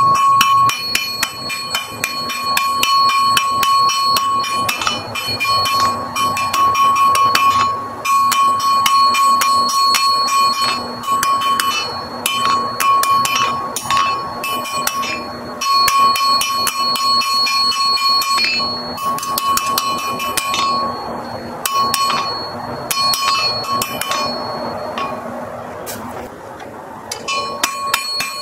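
Hand hammer striking a red-hot iron bar on an anvil in quick, steady blows, the anvil ringing between strikes, with a few short pauses in the last third.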